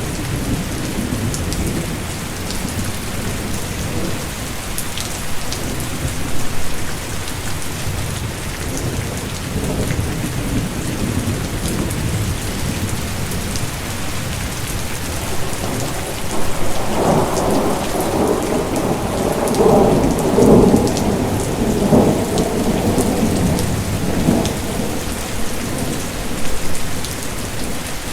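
Steady rain falling, with scattered drop ticks, and a long rolling rumble of thunder that swells a little past the middle and lasts several seconds.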